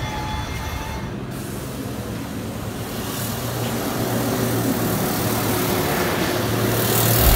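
Road traffic passing close: a car and a double-decker tour bus driving by, with tyre and engine noise that grows louder toward the end.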